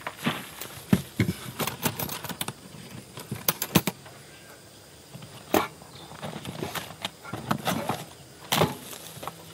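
Hard camping boxes being handled: a cooler lifted off a storage box, the box's lid and latches clicking open, and items knocking and clattering as they are taken out. Sharp clicks and knocks come in clusters, loudest about a second in and again near four seconds.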